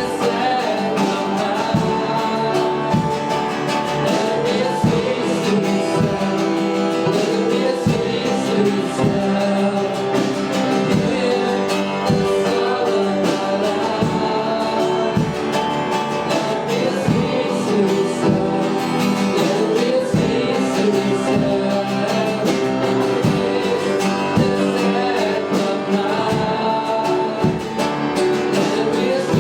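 Worship song in a church service: sung melody over guitar and other instruments, with a steady beat.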